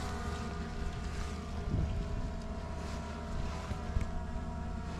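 Steady low rumble of wind on the microphone.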